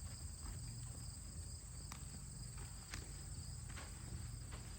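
A steady high insect chorus, with a low background rumble and a few faint clicks.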